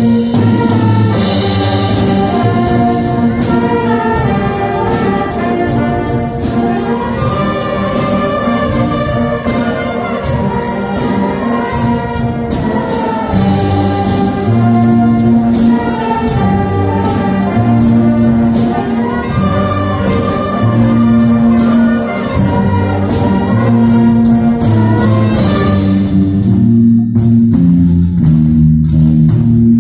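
High school jazz band playing: flutes and brass carry the melody over a bass line and a steady drum beat. About four seconds before the end the winds drop out, leaving the bass and drums with the guitar coming in.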